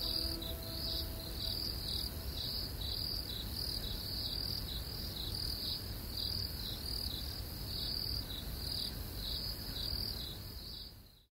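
Crickets chirping in a steady rhythm, about two chirps a second, over a faint low rumble; the sound cuts off shortly before the end.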